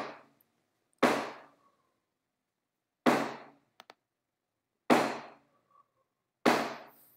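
A run of five heavy thumps, about one and a half to two seconds apart. Each starts sharply and dies away over about half a second.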